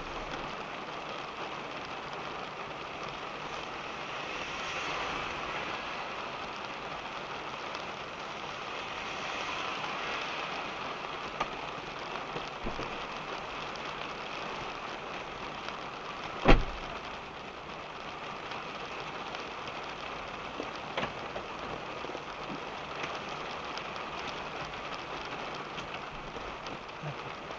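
Steady rain pattering on a car, heard from inside the cabin, a continuous even hiss of drops. A single sharp knock about two-thirds of the way through stands out above the rain, with a few fainter ticks around it.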